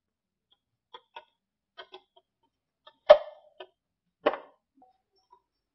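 A string of short, irregular taps and knocks, the two loudest about three seconds and just past four seconds in.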